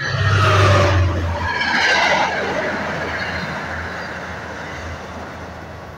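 MBTA commuter rail train passing at speed. The diesel locomotive goes by loudest in the first second and a half, its pitch falling as it passes, then the coaches' wheels rumble past on the rails, fading steadily.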